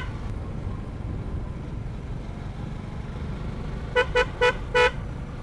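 Motorcycle riding along with a steady low engine and wind rumble. About four seconds in, a horn gives four quick beeps in under a second.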